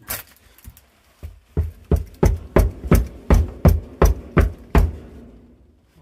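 Heavy pounding on an old wooden basement stair tread, about a dozen thumps at roughly three a second, testing the step for loose nails and soundness before stepping down.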